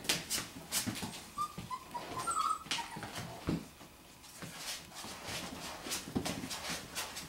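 Five-week-old golden retriever puppies whimpering, a few short high squeaks about one and a half to two and a half seconds in, among light clicks and rustles of the puppies moving about.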